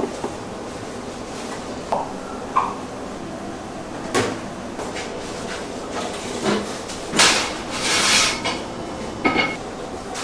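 Clatter of kitchen work: a few sharp knocks and clinks and a longer noisy scrape about seven to eight seconds in, over a steady background hum.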